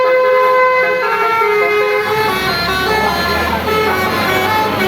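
Multi-tone bus air horn ('telolet') sounding held notes that change pitch like a tune. A bus engine rumbles in from about two seconds in.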